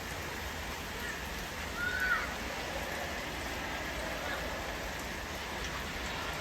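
Rain coming down hard, a steady even hiss of rainfall. About two seconds in comes one brief, faint, high cry in the distance.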